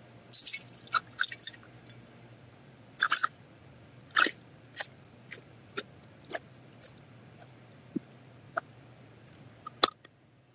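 Plastic ladle and funnel clacking and scraping against an enamel pot and a glass jar as hot lard is ladled into the jar. It is a string of sharp clicks and short scrapes, thickest in the first few seconds, then sparser, with one sharp click near the end, over a faint steady hum.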